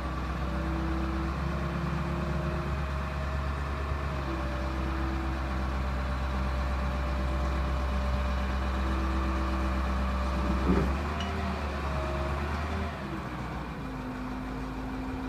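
Diesel engine of a Grove LT409 forklift running steadily, with higher tones that step up and down in pitch as it works. About eleven seconds in there is a brief sharp sound and a short pitch glide, and after that the engine settles slightly quieter.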